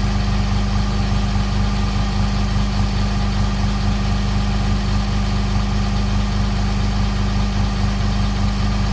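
Pickup truck engine idling steadily, a constant low hum.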